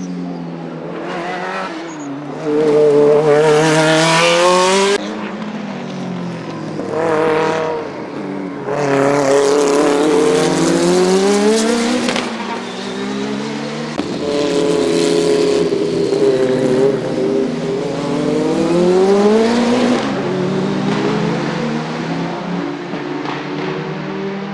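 Group C sports-prototype race cars passing at racing speed, one after another, their engine notes climbing and dropping as they accelerate and shift gear. The sound cuts abruptly a few times.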